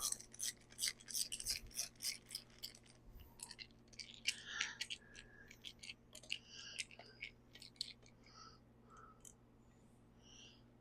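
Faint, scattered light clicks and small scrapes of hand tools and small metal parts being handled while a chainsaw's muffler screws are worked on, more frequent in the first few seconds.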